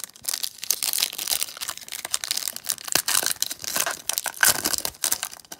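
Foil trading-card pack wrapper crinkling and tearing as it is handled and ripped open, a dense run of sharp crackles.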